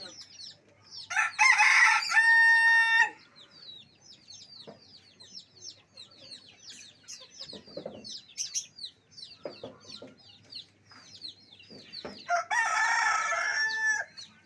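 A rooster crows twice, once about a second in and again near the end, each crow ending on a long held note. Small birds chirp continuously throughout.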